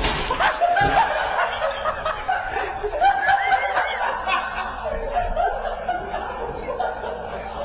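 Laughter that goes on without a break, in high-pitched peals that rise and fall.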